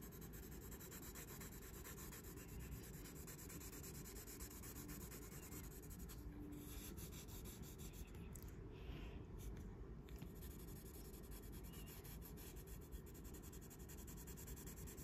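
Pencil held nearly flat, the side of its lead rubbing quickly back and forth across paper in faint, steady shading strokes.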